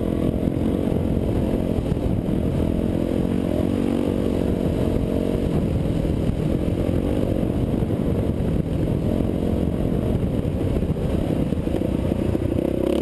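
Dirt bike engine running under throttle while riding a sandy trail, its pitch wavering up and down as the throttle changes.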